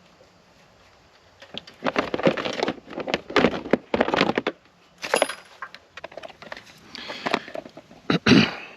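Small hard parts and tools clattering and rattling as they are handled, in irregular bursts with sharp clicks. The loudest clatter comes near the end.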